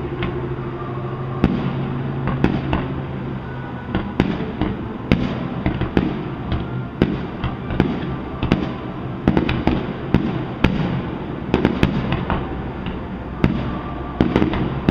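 Distant aerial fireworks shells bursting: a string of sharp bangs at irregular intervals, coming thicker in the middle of the stretch.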